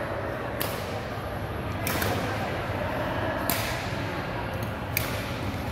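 Badminton rally: racket strings striking a shuttlecock four times, about one and a half seconds apart, each hit a sharp crack with a short hall echo over steady background noise.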